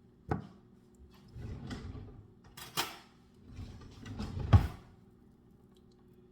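Kitchen handling noises: a few sharp knocks, the loudest about four and a half seconds in, with rustling and scraping between them.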